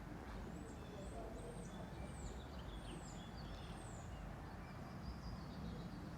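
Small birds chirping: a string of short, high chirps and down-slurred whistles over a low, steady outdoor rumble.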